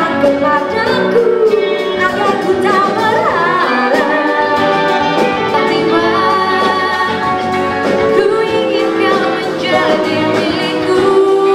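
A woman singing a song into a microphone over instrumental accompaniment, with long held, wavering notes.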